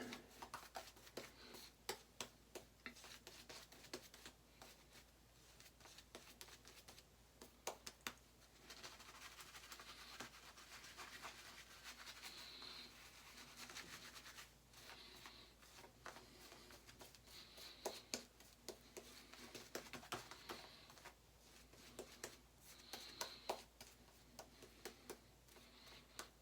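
Faint swishing and scratching of a boar-bristle shaving brush working lather, with many small clicks and taps and a few longer stretches of steady swirling in the middle.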